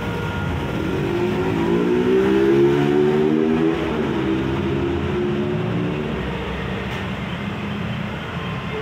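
A motor vehicle running with a steady low rumble, its pitched engine tone rising and then falling. It is loudest about two to three seconds in.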